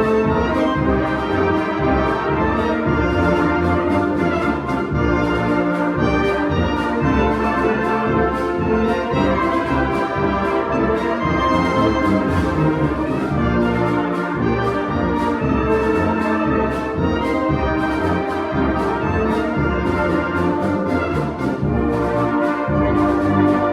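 Orchestral music with prominent brass, sustained chords over a steady low beat.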